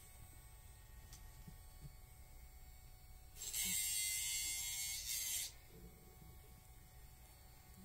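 Handheld pet nail grinder running with a faint steady whine. From about three and a half seconds in, for about two seconds, a loud grinding hiss as the spinning bit is pressed against a dog's claw, with a brief break near the end.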